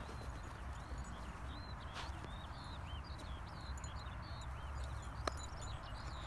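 Wind rumbling on the microphone, with small birds chirping repeatedly in the background and a single sharp click about five seconds in.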